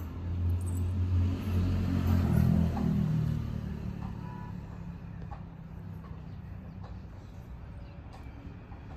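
A motor vehicle's engine passing by: a low rumble that builds, is loudest about two to three seconds in as its pitch slides slightly down, then fades to a steady low drone.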